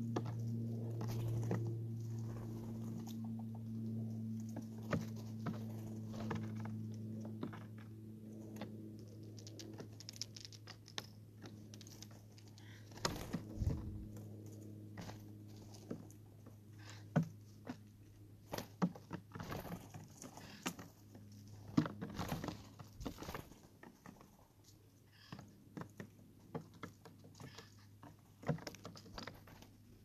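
Steller's jays hopping and pecking close to the microphone: scattered, irregular taps and clicks of claws and beaks on the feeding surface, with peanuts knocked about. A low steady hum runs underneath and fades over the first half.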